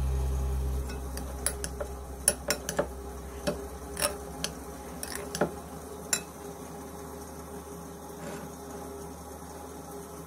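Metal spoon stirring a chopped salad in a glass bowl, clinking sharply against the glass a dozen or so times in the first six seconds, then mixing more quietly.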